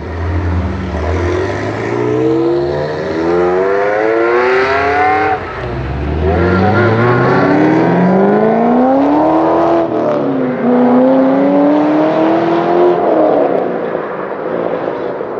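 Chevrolet Corvette Z06's 7.0-litre V8 with a Borla S-type exhaust accelerating hard under full throttle. The pitch climbs through a gear, drops at an upshift about five seconds in and again about ten seconds in, then climbs once more before the sound fades as the car pulls away.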